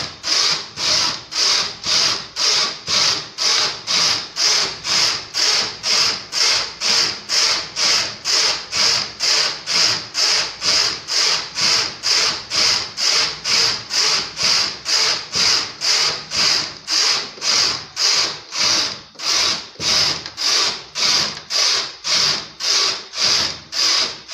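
Domestic flatbed knitting machine carriage pushed rapidly back and forth across the needle bed, knitting one row per pass. Each pass is a rasping swish, about two a second, in an even rhythm.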